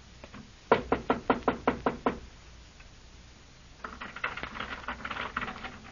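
Knocking on a door, a sound effect in a 1938 radio-drama recording: a quick run of about nine sharp knocks lasting under a second and a half. About four seconds in comes a quieter stretch of clatter.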